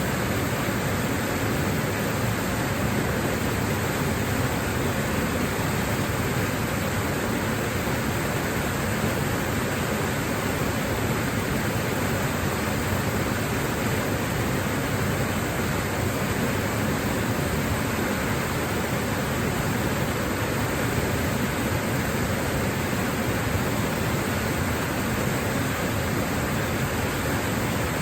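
Waterfall rushing steadily: an unbroken, even wash of falling water.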